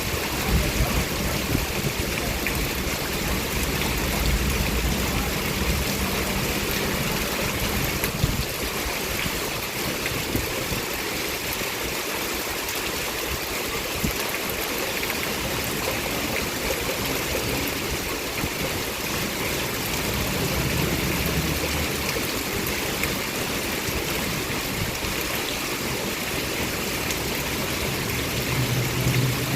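Heavy rain falling steadily, a dense even hiss, with a low rumble underneath for the first several seconds and again briefly later and near the end.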